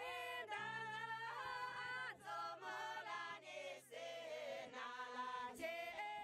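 A group of Tamang women singing together in phrases with short breaks between them.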